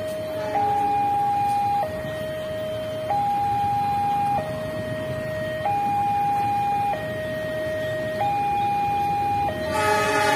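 Railway level-crossing warning signal sounding while the barrier is down: a two-tone electronic alarm stepping back and forth between a higher and a lower note, each held about a second and a quarter. Near the end a louder train sound rises over it.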